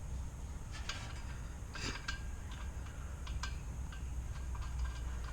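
Light metallic clicks and taps from fitting a blower wheel onto an ECM motor shaft and lining its set screw up with the shaft's flat. A steady low hum runs underneath.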